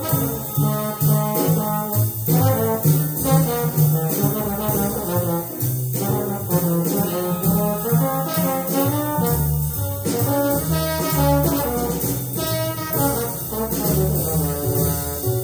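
Hard-bop jazz recording: a trombone solo over a walking bass and the rest of the rhythm section, on a medium-tempo blues.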